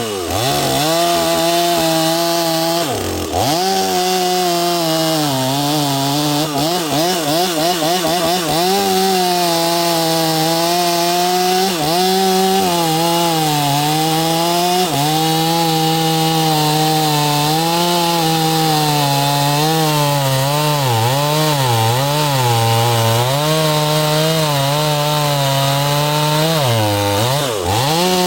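Gas chainsaw cutting through a hard, twisted-grain black oak log. The engine is under load and its pitch wavers as the chain works through the wood. Engine speed dips briefly about three seconds in and again near the end, then picks back up.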